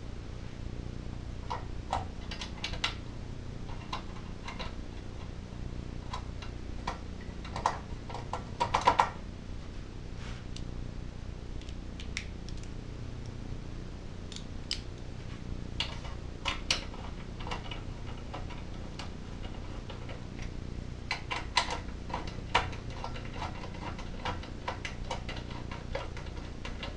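Scattered light metallic clicks and taps from bolts being fitted and hand-threaded into the shroud of a Tecumseh small lawn mower engine, with a louder clatter about nine seconds in. A steady low hum runs underneath.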